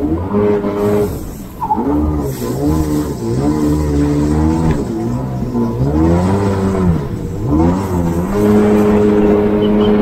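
Jet ski engine running hard, its pitch dipping and climbing again several times as the throttle is eased and opened, then holding steady near the end.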